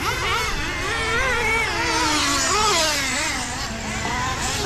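Several two-wheel-drive nitro RC trucks racing, their small engines revving up and down in overlapping whines of different pitches. The sound grows somewhat louder around the middle.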